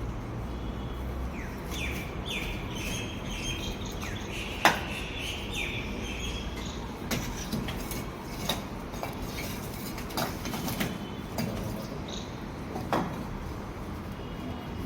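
Scattered sharp knocks and clicks, the loudest about four and a half seconds in, with birds chirping between about two and six seconds in.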